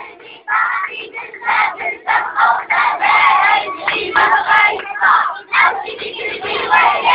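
A young girl's voice through a handheld microphone and loudspeakers, over the noise of a crowd of voices.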